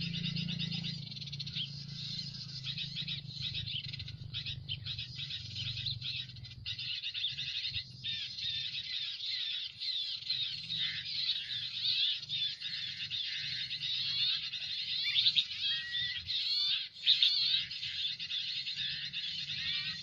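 Dense, continuous high twittering and chirping of small birds, with rapid trills; the chirps grow louder and sharper in the second half.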